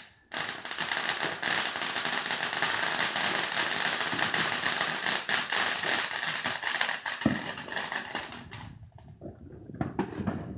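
Fireworks crackling: a dense run of rapid pops that starts suddenly, goes on for about eight seconds and then cuts off, with a few more scattered crackles near the end.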